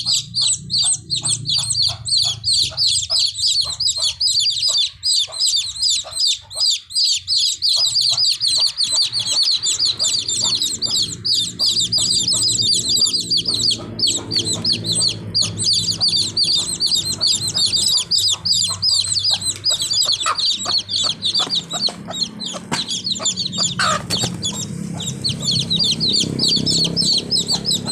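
Baby chicks peeping continuously, many high, rapid chirps overlapping, with a low steady hum underneath for much of the time.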